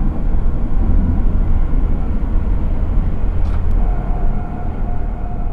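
Tram running along its track at speed, heard from the driver's cab: a deep steady rumble of wheels on rails and running gear. A steady whine joins about four seconds in.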